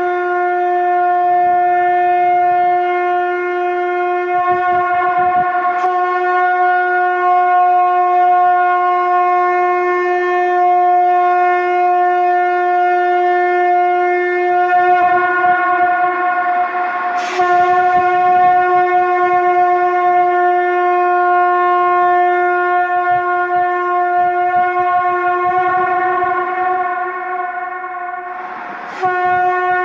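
Shankh (conch shell trumpet) blown in a long, steady held note rich in overtones. The note breaks briefly and starts again about 6 seconds in, again about 17 seconds in, and once more near the end after a short dip in loudness.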